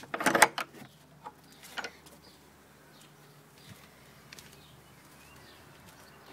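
Steel barrel bolt on a wooden gate being slid open: a loud metallic rattle lasting about half a second, then two shorter knocks within the next second and a half, followed by faint outdoor background.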